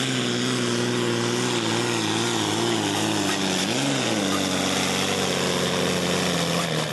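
Diesel engine of a Valtra-bodied pulling tractor running at full power under load, pulling the weight sled. Its steady engine note dips and recovers about four seconds in, then sinks slightly near the end.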